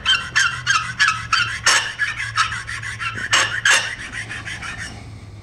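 Lie-Nielsen rabbet block plane body rubbed back and forth on a wet 1000-grit sharpening stone to round off its corners. Quick strokes, about five a second, fade out near the end.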